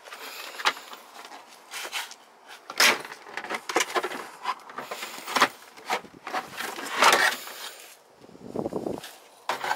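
Plastic pillar trim cover being pulled off a car's interior, with irregular snaps and clicks as its retaining clips pop loose and plastic scrapes and rattles; the sharpest snaps come about 3, 5½ and 7 seconds in.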